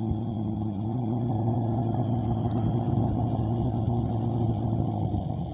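Gas burner firing in the coal-type boiler of a gauge 1 live-steam Quarry Hunslet, drawn by an electric suction fan: a steady, noisy, fluttery hum. It is the sound of the fire just lit at the start of steam raising.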